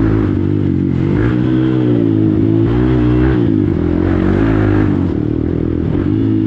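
Hero XPulse motorcycle's single-cylinder engine, with an Akrapovic exhaust, running at low revs under way, its pitch rising and falling a little with the throttle.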